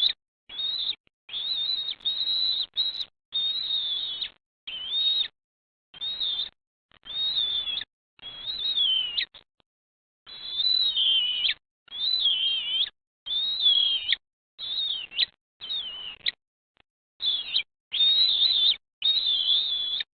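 Bald eagles calling at the nest: a long run of high chirping calls, each lasting up to about a second, many sliding down in pitch, with short gaps between them.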